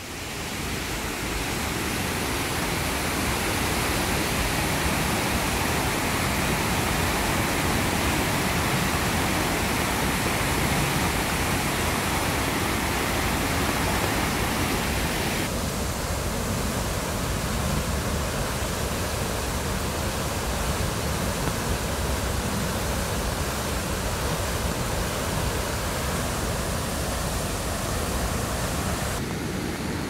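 Rushing water of a mountain stream swollen into a flood by heavy rain: a dense, steady wash of water noise. Its tone shifts abruptly about halfway through and again near the end.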